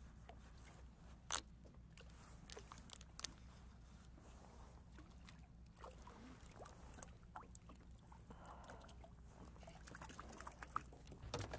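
Near silence on calm water, broken by scattered light clicks and taps of fishing tackle as a small fish on a sabiki rig is swung up to the kayak and handled, the sharpest click about a second in.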